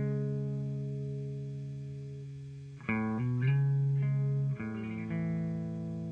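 Slow background music of plucked string chords left to ring and fade, with new chords struck about three seconds in and again about four and a half seconds in.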